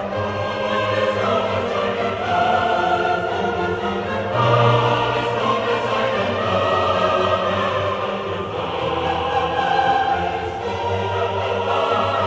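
Background choral music: a choir singing long held notes over classical accompaniment, with a deeper swell about four and a half seconds in.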